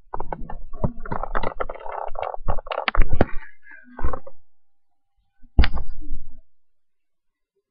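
Thunder crackling and booming in loud bursts of sharp cracks with a deep rumble under them, ending about two-thirds of the way through.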